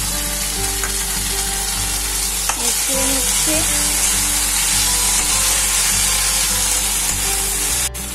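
Onions, capsicum and garlic frying in hot oil in a steel kadai on high flame, with a chilli sauce mixture just added: a steady sizzle as a steel spatula stirs through them.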